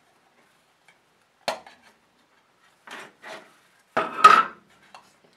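Hard plastic drill handle and battery-pack housing being handled and knocked together: a sharp clack about one and a half seconds in, two softer ones around three seconds, and the loudest pair of knocks about four seconds in.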